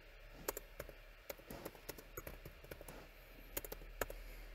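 Faint, scattered keystroke clicks of a computer keyboard as a short command is typed, a few keys a second.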